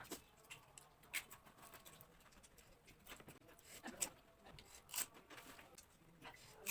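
Fuchka (pani puri) being eaten: a few faint, separate crunches of the crisp puri shells and mouth sounds, roughly a second apart.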